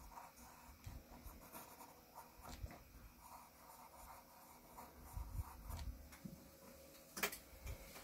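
Graphite pencil scratching on paper in quick, short hatching strokes, faint throughout. One sharp click about seven seconds in.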